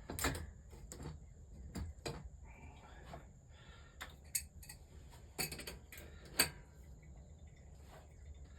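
Irregular sharp clicks and clinks of small hand tools and parts being handled, with a brief rustling scrape about two and a half seconds in.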